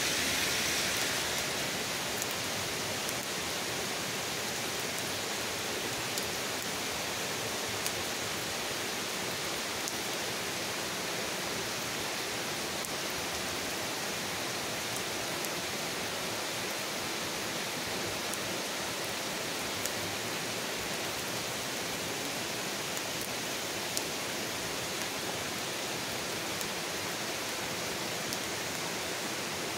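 Steady rain falling on trees and a lawn, an even hiss, with a few louder drops ticking now and then.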